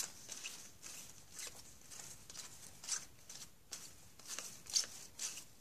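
Trading cards being flipped and slid against each other by hand: faint, irregular papery swishes and rustles, a few a little louder in the second half.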